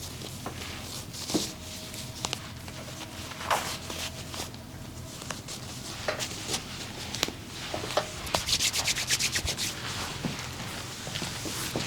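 Hands rubbing and massaging skin, with scattered light clicks. About eight seconds in there is a quick, even run of short strokes, roughly ten a second, lasting about a second and a half.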